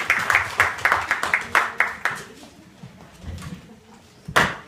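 Hand clapping in a steady rhythm, about four claps a second, fading out about two seconds in. Near the end comes a single loud, sharp hit.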